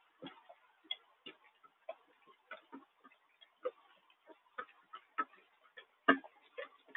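Raindrops dripping and tapping on a hard surface in irregular ticks, about two a second, with one louder tap about six seconds in.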